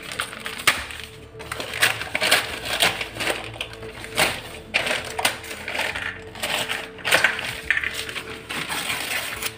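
Newspaper crinkling and rustling as the excess lining is trimmed and pulled away from around a stainless-steel spice box, with light clinks of the steel bowls.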